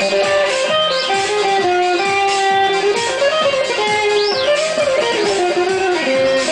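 Instrumental music: a lead guitar playing a sustained melody with sliding, gliding notes over a steady beat.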